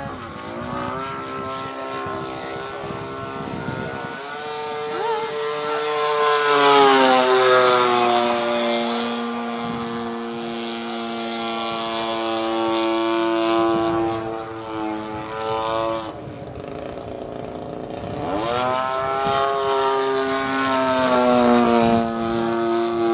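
55cc two-stroke gas engine of a large radio-control Extra 300 running in flight, its pitch falling about a quarter of the way in, holding through the middle, then climbing sharply as the throttle is opened near the end.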